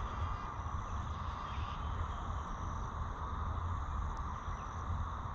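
Steady insect chirring in the background over a constant low rumble.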